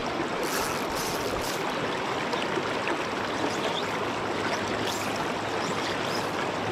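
River water rushing steadily over a stony run.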